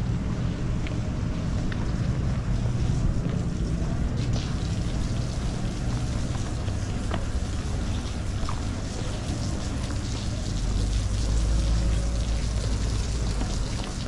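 Wind buffeting the microphone of a handheld camera while walking, a steady low rumble that grows stronger about ten seconds in.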